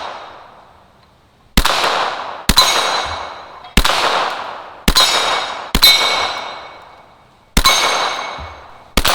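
Ruger Mark II .22 LR semi-automatic pistol firing about seven shots at uneven spacing, roughly a second apart. Each shot is followed by the ringing clang of a steel Texas Star target plate being hit.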